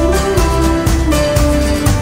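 Background music with a steady beat, a bass line and a melody line.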